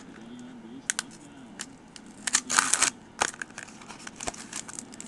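Foil wrapper of a 2007 Upper Deck Black trading-card pack crinkling and tearing as it is pulled open by hand, in short scattered crackles with a denser burst of crinkling a little over two seconds in.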